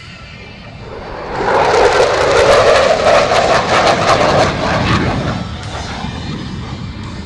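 Jet fighter flying low overhead, a Thunderbirds F-16: a loud engine roar that swells about a second in, holds for a few seconds, then fades as the jet passes.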